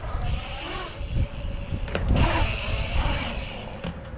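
Bike tyres rolling over a concrete skatepark bowl, a steady rumble with wind rushing on the microphone, and a sharp knock about two seconds in.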